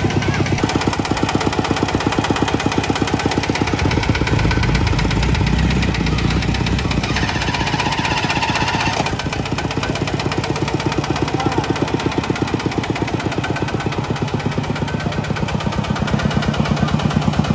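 A vehicle engine running close by with an even, fast chugging beat, heavier between about four and seven seconds in.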